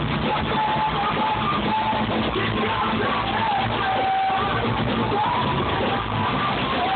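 Rock band playing live, heard from among the crowd: drums, guitars and keyboards in a dense, steady wash, with a wavering melody line on top.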